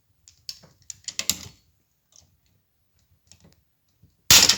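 Hand blind-rivet (pop-rivet) gun being squeezed: a run of clicks and clacks in the first second and a half as it grips and pulls the mandrel, then one loud sharp snap near the end as the mandrel breaks off and the rivet sets.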